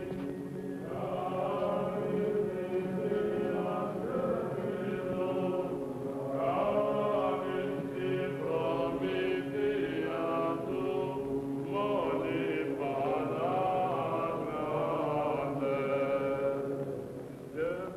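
Byzantine chant sung by male voices: a melodic line moving in phrases over a steady held drone (ison).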